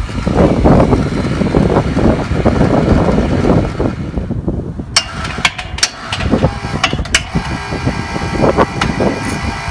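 Electric hoist running, a faint steady motor whine with scattered sharp clicks, after a few seconds of dense rustling noise.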